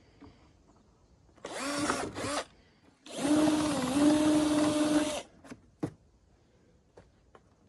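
Cordless drill running in two bursts, a short one and then one of about two seconds. Its whine dips briefly as the bit bites into the scooter's plastic front fairing. A couple of sharp clicks follow.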